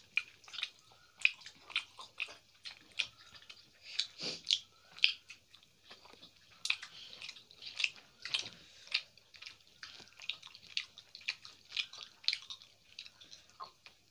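Close-up wet chewing of soft, syrup-soaked rosogolla and rice: many short, sharp mouth clicks and smacks, several a second.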